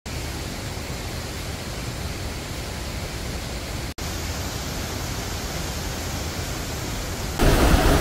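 Steady rush of a mountain stream in spate, its water running high after days of rain. The sound drops out for an instant about four seconds in and is louder near the end.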